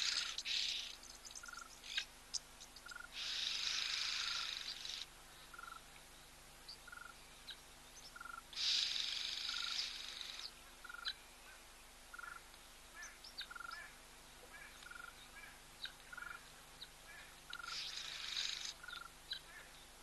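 Natural wildlife ambience of calling small animals: a high, hissing buzz that swells for one to two seconds at a time, four times, loudest about nine seconds in, over a short chirp repeated roughly every half second to a second and scattered small chirps and clicks.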